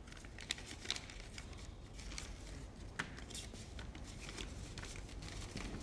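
Faint rustling of paper letters being handled, with scattered small clicks and one sharper knock about three seconds in.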